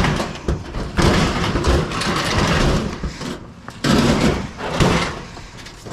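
A heavy piece of furniture with drawers being slid down steps, scraping along with several bumps as it drops from one step to the next.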